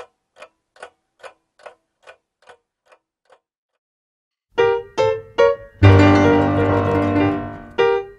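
A clock ticking about two and a half times a second, fading out over about three seconds. After a second of silence a klezmer band comes in loud with short staccato chords, one long held chord that dies away, and two more short chords near the end.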